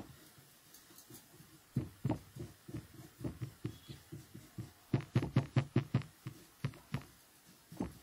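A paintbrush stroking and dabbing chalk paint onto a wooden tissue box, a string of soft scrubbing taps that speed up to about five a second around the middle.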